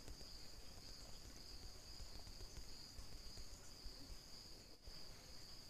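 Near silence: faint background noise with a steady high-pitched tone.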